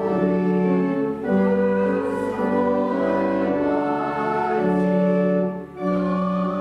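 Organ music: slow, held chords that change about once a second, with a brief break about five and a half seconds in.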